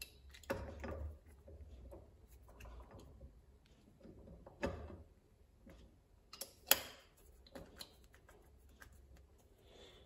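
Light metallic clicks and ticks of a hand tool turning bolts on a milling machine's spindle-lock housing, with a few sharper clicks spread through and the loudest about two-thirds of the way in. The bolts are the wrong, over-long ones and keep turning without tightening.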